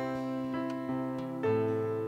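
Keyboard on an electric-piano sound holding soft chords together with an acoustic guitar, a new chord coming in about one and a half seconds in: the instrumental ending of a love ballad after its last sung line.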